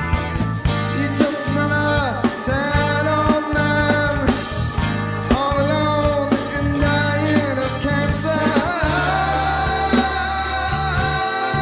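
Live rock band playing: a man sings lead vocals over electric guitar, bass guitar and drums.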